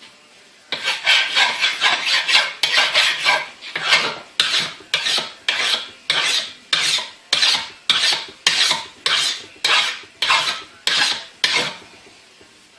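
Repeated metal-on-metal scraping strokes on a freshly cleaned, restored bench vise. They come quickly at first, then settle to about two a second, and stop near the end.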